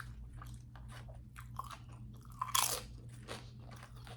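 Close-miked chewing: a person eating with irregular crunchy, wet mouth clicks and smacks, one louder crunch about two and a half seconds in.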